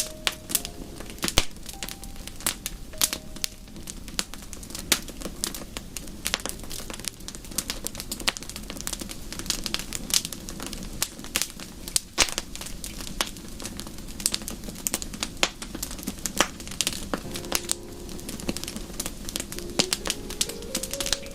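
Wood fire crackling in a fireplace: a steady low rush with many irregular sharp pops and snaps. A few faint held tones come in near the end.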